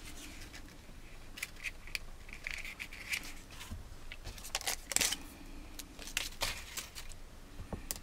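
Light clicks, taps and paper rustling from hands handling small cardstock pieces and peeling glue dots off their roll, scattered and irregular.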